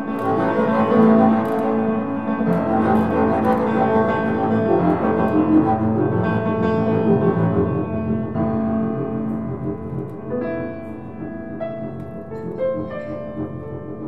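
Upright piano and double bass playing a free improvisation together. The playing is dense and sustained at first, then thins out in the second half into separately struck piano notes over the bass.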